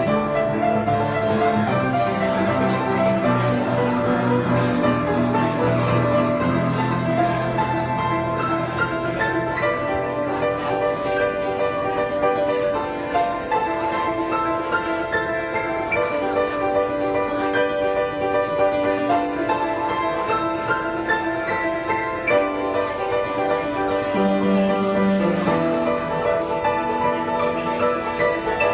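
Solo piano playing a flowing, many-noted passage over held bass notes.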